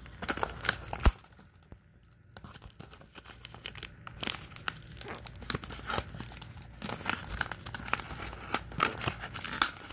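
Thin plastic wrap crinkling and tearing as fingers peel it off a plastic toy capsule ball, in irregular crackles, with one sharp knock about a second in.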